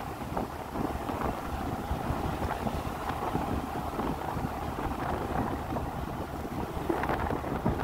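Wind buffeting the microphone of a camera on a moving vehicle, a steady rumbling flutter, with the vehicle's running noise underneath.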